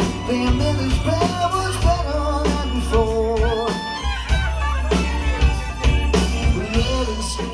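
Live band playing a yacht-rock song: keyboard, bass and drums with a gliding lead melody over them.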